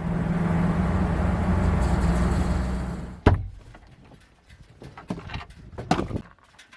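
A motor vehicle's engine running steadily, dying away about three seconds in. It is followed by one sharp bang and a scatter of lighter knocks and clicks.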